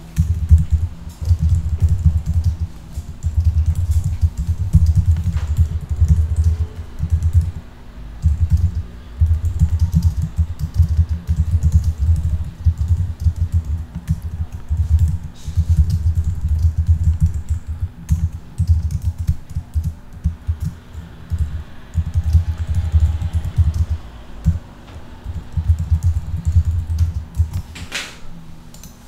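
Typing on a computer keyboard in quick runs with short pauses, the keystrokes coming through as dull low thuds. The typing stops about a second before the end.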